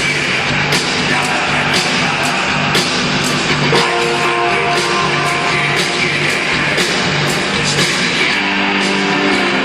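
Rock band playing loud and amplified, with a drum beat and guitar; from about four seconds in, sustained notes ring over the beat.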